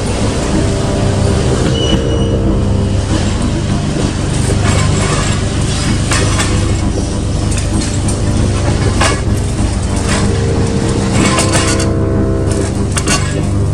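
Heavy demolition excavator's diesel engine running steadily under load, with repeated sharp cracks and clatter of concrete debris breaking and falling.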